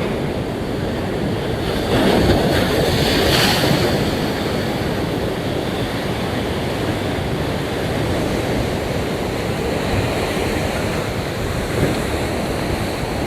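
Sea waves breaking and washing up the beach, with a louder surge of surf about two to four seconds in, and wind buffeting the microphone.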